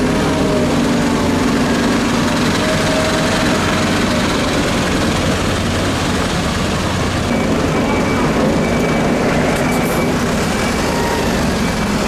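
Diesel engines of heavy cleanup machinery running close by, a JCB backhoe loader and a street-sweeper truck, in a steady dense rumble. A short high beep repeats several times in the second half.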